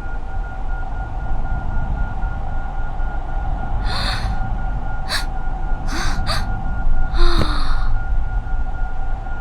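Steady low droning ambience with a constant hum, broken by four short breathy bursts between about four and seven and a half seconds in.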